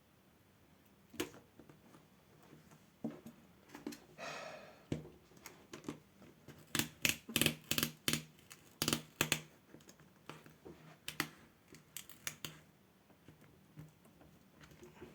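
A screwdriver prying at a ThinkPad T14 Gen 2's plastic screen bezel: a run of sharp plastic clicks and snaps, with a short scrape about four seconds in, as the bezel is worked loose from its adhesive tape.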